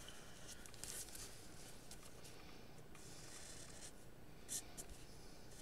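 Felt-tip marker drawing along the edge of a paper stencil: a faint scratching of the tip in several short strokes, one a little louder about four and a half seconds in.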